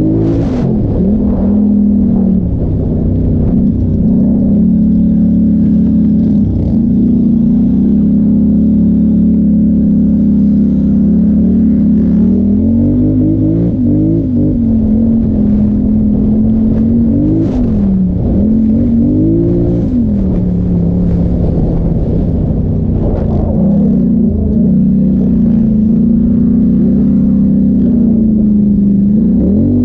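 Polaris Sportsman XP 1000 ATV's parallel-twin engine running hard under way, heard from on board the machine. The engine note holds steady for long stretches, with a few brief rises and drops in revs near the middle.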